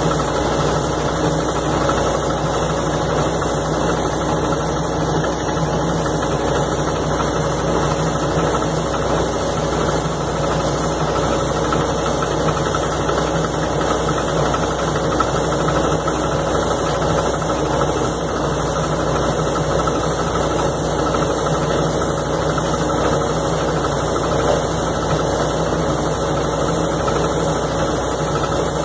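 Crawler-mounted anchor drilling rig running steadily, its engine and hydraulics driving the cased drilling without a break.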